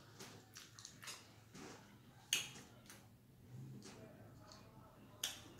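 Faint eating sounds with scattered small clicks, and a sharper click about two seconds in and another near the end as a plastic drink bottle is handled and its cap twisted.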